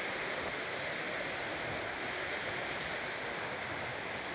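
Ocean surf washing onto the beach: a steady, even rush with no breaks.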